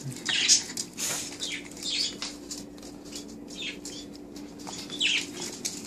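Small dogs scrabbling and shuffling around a person's feet on a hardwood floor during hand-feeding: scattered short scratchy noises, over a steady low hum.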